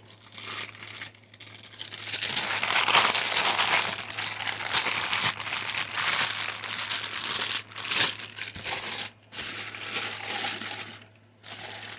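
Plastic packaging crinkling and rustling as it is handled, in long stretches with a few short pauses.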